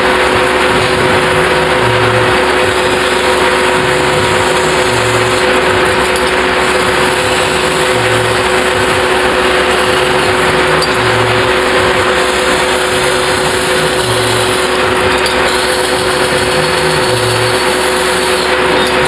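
Large metal-spinning lathe turning a big sheet-metal disc while a long hand-levered spinning tool presses it over the form: a loud, steady rushing noise with two steady hums underneath.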